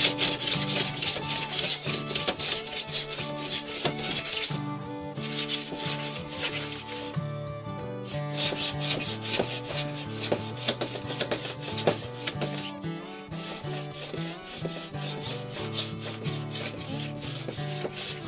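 Sandpaper rubbed in quick back-and-forth strokes along a glued bamboo rod blank, sanding off excess glue and enamel, with short pauses about five, seven and thirteen seconds in. Faint background music underneath.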